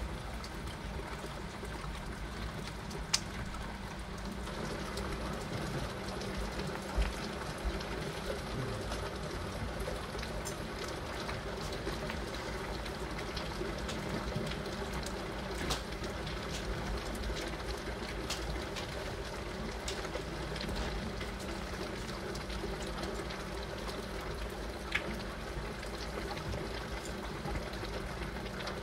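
Heavy rain falling steadily, as a continuous hiss, with a few sharp ticks scattered through it.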